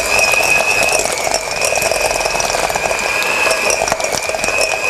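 Electric hand beater running at a steady speed, creaming soft butter in a mixing bowl: a steady high motor whine with rapid ticking.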